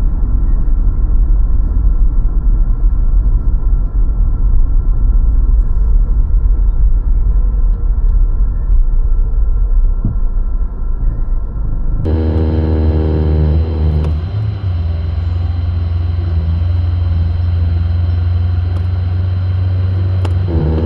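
A car driving on city streets: steady low engine and road rumble. About two-thirds of the way through, the sound changes abruptly to a brighter mix with a steady engine hum.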